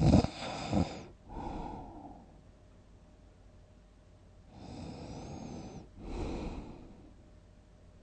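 A sleeping person snoring. It opens with a loud snort and a softer breath, then a quiet gap of about two seconds. A longer snoring breath follows with a thin high whistle over it, then another breath.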